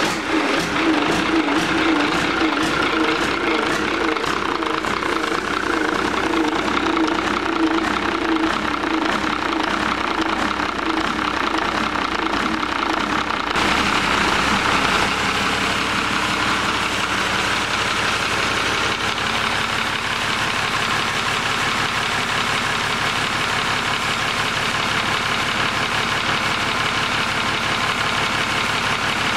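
Yanmar 6LY2A-STP six-cylinder turbo diesel marine engine running steadily. About halfway through its sound changes abruptly, then it runs evenly to the end.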